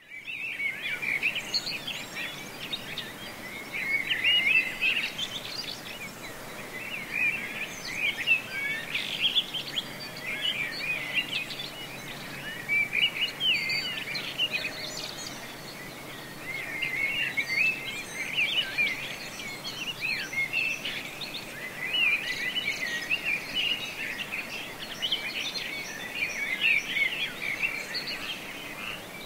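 Several small birds chirping and twittering without a break, many quick overlapping notes sliding up and down in pitch.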